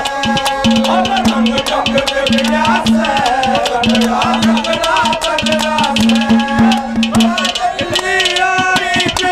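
Live Haryanvi ragni music in an instrumental passage: a winding melody over fast drum beats and a shaking rattle, with a short low note repeating under it.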